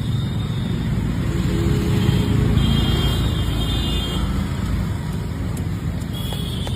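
Royal Enfield Bullet's single-cylinder engine running through its exhaust silencer: a steady low rumble that grows a little louder about two seconds in.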